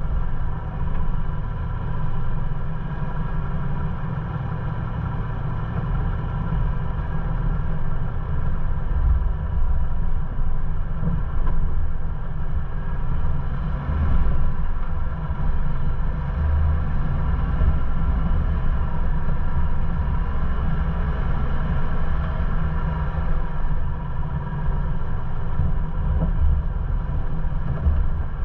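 Ford Bronco driving slowly along a dirt off-road trail: a steady, uneven low rumble of engine and road noise.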